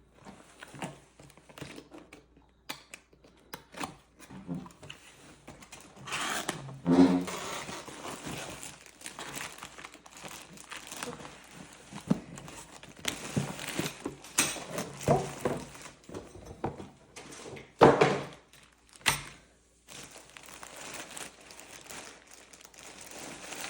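Packaging being opened by hand: irregular crinkling and tearing of wrapping, with a few knocks and thuds. The loudest bursts come about a third of the way in and again past the middle.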